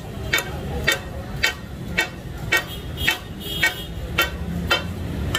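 Metal chopping blades striking a large flat iron griddle (tawa) in the steady takatak rhythm: about ten ringing clacks, roughly two a second, as offal is chopped on the hot plate. A steady low rumble runs underneath.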